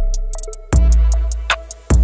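Background electronic music with a drum-machine beat over deep, sustained bass notes.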